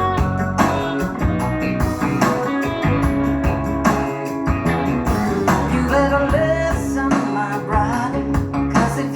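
A blues-rock song with guitar, bass and drums, and a singing voice coming in about halfway through, played back through a Willsenton R8 valve amplifier and SLAudio transmission-line speakers.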